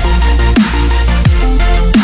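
Electronic background music with a heavy bass and a falling pitch sweep about every 0.7 seconds.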